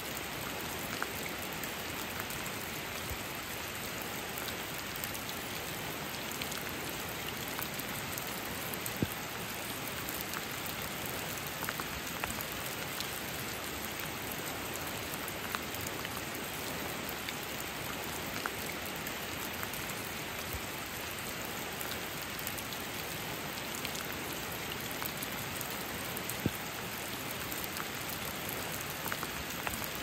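Steady rain falling on rainforest ferns and foliage, an even patter with a few sharper drips standing out.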